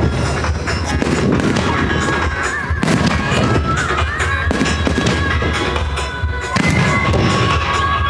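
Fireworks shells bursting several times over music played with the display.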